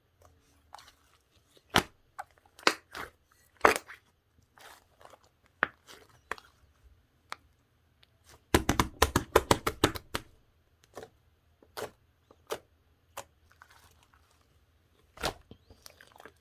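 Slime being squeezed and poked by hand, giving sharp wet pops and crackles, with a quick run of a dozen or so pops about halfway through.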